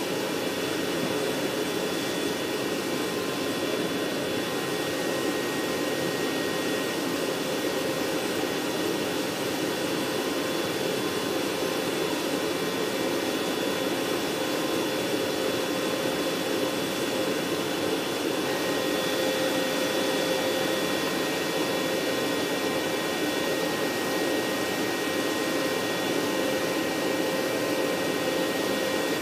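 Steady rushing whine of aircraft turbine machinery running, with a few high steady tones held throughout and no change in pitch or level.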